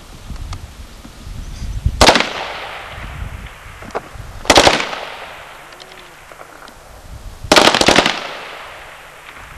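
Three rifle shots fired from the prone position on an outdoor range, a few seconds apart, each followed by a fading echo. The third is two or more cracks in quick succession.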